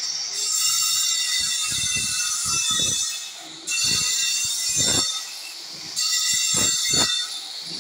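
Handheld angle grinder running with a high whine and cutting into marble pulpit panelling, the screech rising and falling as the disc bites in several stretches of one to three seconds, the longest near the start.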